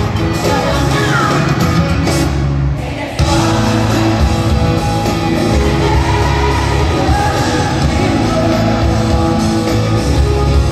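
A rock band playing live with a woman singing, heard through an arena's PA system from the stands, with the hall's echo. The music dips briefly about three seconds in, then the full band comes straight back in.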